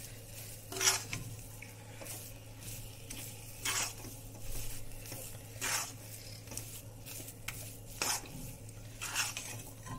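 Spatula scraping and stirring thick halwa dough around a kadhai, about five separate scrapes a second or two apart. Under them is a faint sizzling of the halwa cooking in ghee.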